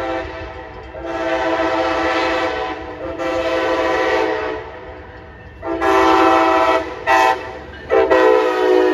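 Siemens ALC-42 locomotive's air horn sounding a series of blasts on the approach to a grade crossing: two long blasts, then long, short and long near the end, the standard crossing warning. A low rumble from the train runs underneath.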